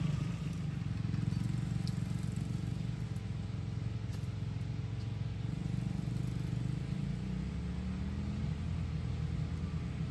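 Small 110 cc single-cylinder four-stroke engine of a kids' four-wheeler ATV running steadily as it is ridden.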